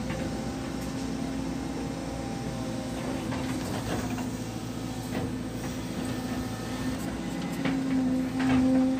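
Excavator engine and hydraulics running steadily with a constant pitched hum, heard from inside the cab as the bucket digs soft mud. There are a few short knocks, and the machine gets louder near the end.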